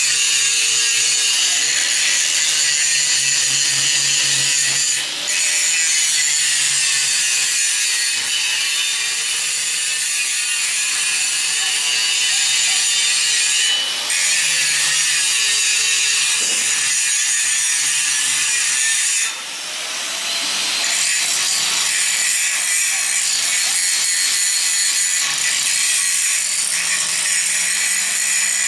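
Handheld electric angle grinder with an abrasive disc grinding a steel pipe support: a steady, harsh hiss of disc on metal over the motor's whine. The grinding eases briefly a few times, longest about two-thirds of the way through, as the disc lifts off the work.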